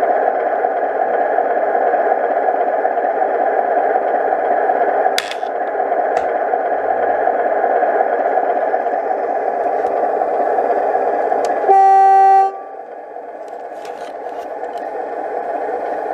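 DCC sound decoder in an O gauge model BR Class 25 diesel running its engine idle sound through the model's small speaker. About twelve seconds in it gives a single horn blast of about a second, and the engine sound then drops quieter.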